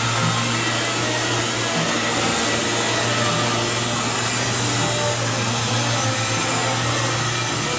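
Rotary buffer with a foam pad running steadily against a truck's painted fender: a constant low motor hum under a broad hiss.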